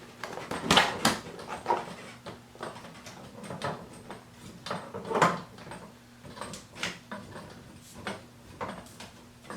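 Irregular clicks, knocks and rustles from handling the lighting kit's parts and packaging, with two louder knocks, one about a second in and one near the middle.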